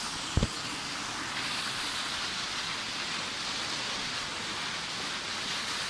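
Water rushing steadily down a rocky cascade. A single brief low thump about half a second in.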